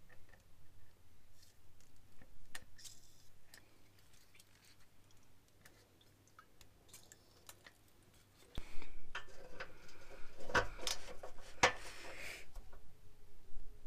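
WD-40 aerosol giving a few short, faint hisses onto a rusty exhaust clamp bolt. About two-thirds of the way in, a socket wrench on an extension works the clamp nut, with irregular metallic clicks, knocks and scraping, the loudest part.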